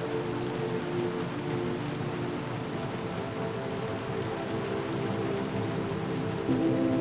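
Steady rain falling, an even hiss with scattered drop ticks. Low held tones sound underneath and shift in pitch near the end.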